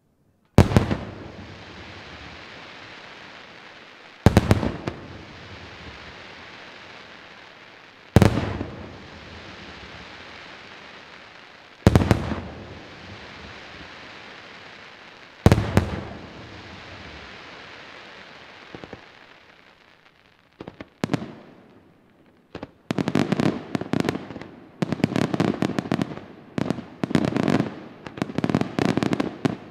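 Aerial firework shells bursting: five loud bangs about four seconds apart, each followed by a long hiss that slowly fades. Near the end comes a rapid barrage of many sharp pops.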